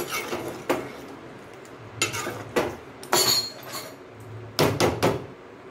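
A large steel spoon stirs a thick curry in a metal pot, scraping and clinking against the pot's sides in a series of separate strokes, about seven in all.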